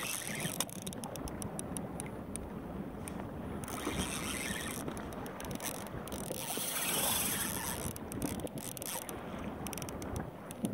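Inner-spool spinning reel ticking in quick runs of clicks while a hooked fish is played, over a continuous wash of wind and water noise that swells midway.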